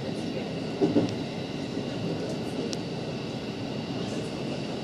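A JR West 223 series 2000-subseries electric train running, with steady rolling and wheel-on-rail noise and faint steady high tones. There is a louder thump about a second in and a few brief sharp clicks.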